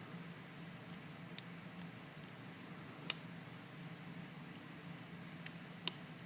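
Small sharp clicks of a lock pick working the pins inside a stainless steel padlock: a handful of separate clicks, the loudest about three seconds in, over a faint steady low hum.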